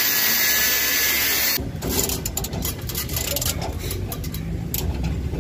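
Angle grinder with a cut-off disc running at full speed on thick stranded copper cable, a loud steady hiss that cuts off abruptly about a second and a half in. After it, scattered clicks of a ratchet wrench tightening the cable lugs on the busbars.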